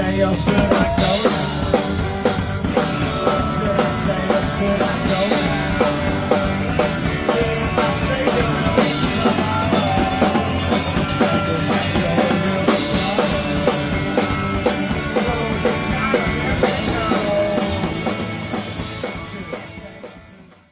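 Rock band playing, with the drum kit's kick and snare to the fore; the music fades out over the last couple of seconds.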